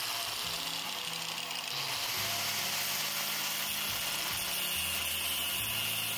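Porter-Cable angle grinder with a cutting wheel running steadily as it cuts through a steel combination wrench, a continuous whine and grinding hiss of the wheel on the metal.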